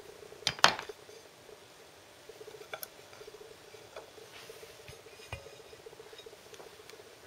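Two sharp clinks on a china plate about half a second in, then light taps and scrapes as shortbread biscuits are handled and set down on a plate, over a faint steady hum.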